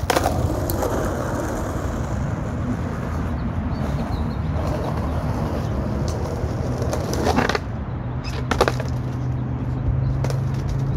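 Skateboard wheels rolling over rough asphalt, then sharp clacks of the board hitting the ground about seven and a half and eight and a half seconds in.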